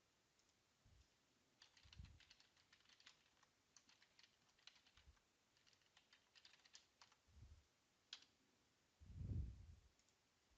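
Faint typing on a computer keyboard, irregular clicks with short pauses, with a soft low thump about nine seconds in.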